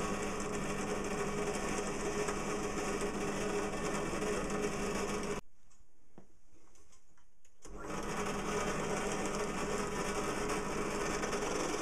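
Steady mechanical hum of a small motor with a few steady tones in it. It cuts out abruptly about five and a half seconds in and comes back about two seconds later.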